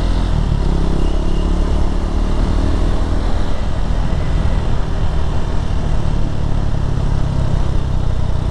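KTM 390 Duke's single-cylinder engine running under way, with road and wind noise; the engine note shifts in the first second or so, then holds steady.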